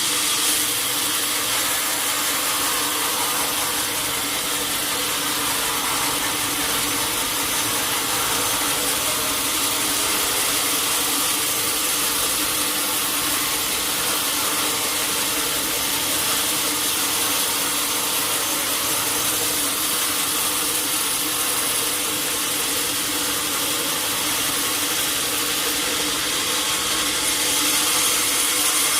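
Sawmill saw running steadily: a constant hiss over a steady hum of several tones, without a break or change.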